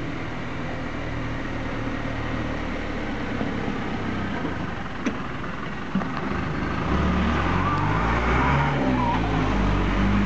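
Isuzu NPR tow truck's engine running, getting louder about seven seconds in with its pitch rising and falling as the truck drives off and passes close by. Two short knocks sound about halfway through.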